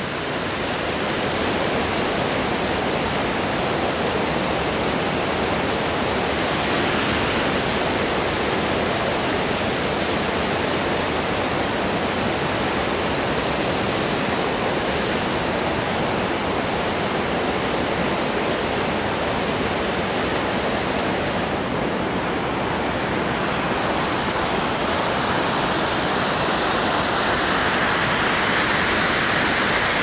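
River water rushing over rocky shoals and ledges: a steady, unbroken hiss of white water, growing slightly louder near the end.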